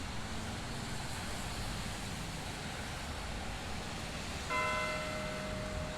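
Courthouse clock tower bell striking the hour at noon: one stroke about four and a half seconds in that rings on with several overtones, over a low steady background hum.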